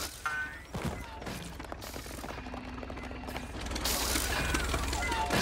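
Cartoon sound effects of a wheeled cider-squeezing machine rattling along: rapid ratcheting, clanking clicks over a low mechanical rumble.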